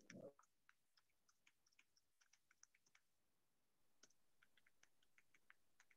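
Near silence, with faint, irregular clicks of typing on a computer keyboard.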